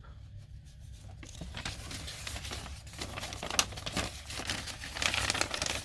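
Paper manual sheets being handled and crinkled: a rustle of irregular crackles that grows busier after about the first second.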